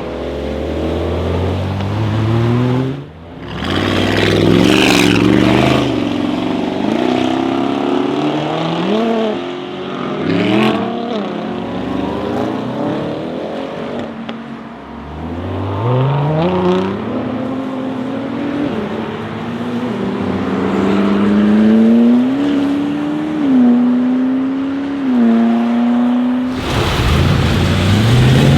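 Audi RS6 C8's twin-turbo V8, catless downpipes and particulate filter deleted, revving and accelerating, its pitch rising and falling several times and climbing in steps near the end. It is really loud, with a few sharp crackles.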